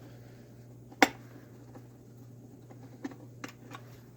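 Small clicks and taps of tools and metal parts as the electrical access plate is taken off the bottom of a garbage disposal: one sharp click about a second in, then a few softer clicks about three seconds in.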